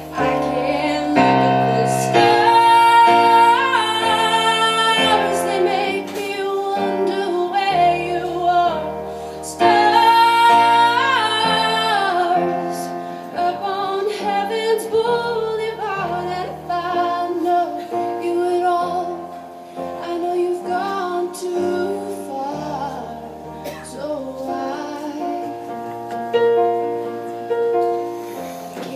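A woman singing live, accompanying herself on an electric keyboard played as a piano, with long held sung notes over sustained chords. The singing is strongest in the first half and softer in the second.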